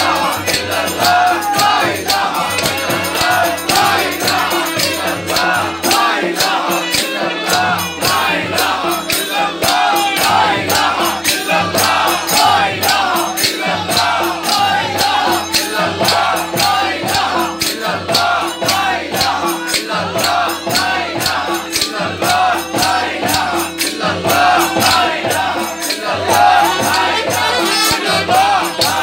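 A crowd of men chanting a Sufi zikr together behind a lead singer, with hand clapping and percussion keeping a fast, even beat.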